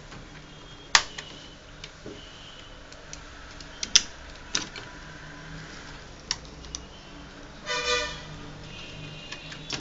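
Sharp clicks and taps of a small screwdriver on the metal screws and hard-drive bracket inside an opened laptop, the loudest about a second in and about four seconds in. A short tooting tone, like a horn, sounds briefly about eight seconds in.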